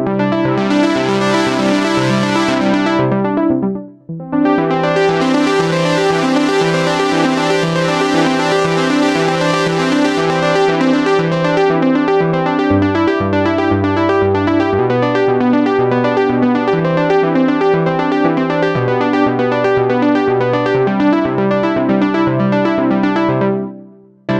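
Roland J-6 chord synthesizer playing factory presets: fast repeating chords whose brightness swells and falls. It stops briefly about four seconds in, then a second pattern with shifting bass notes runs and fades out near the end.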